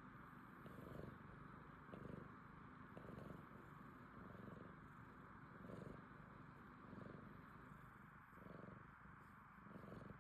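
A cat purring faintly, the rumble swelling and easing in a steady rhythm with each breath, about once every second and a bit.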